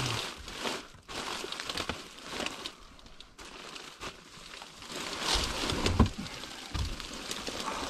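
Rustling and crinkling of a person crawling and squeezing through a cramped attic, body and clothing brushing against insulation and ducting, with a few low bumps, the loudest about six seconds in.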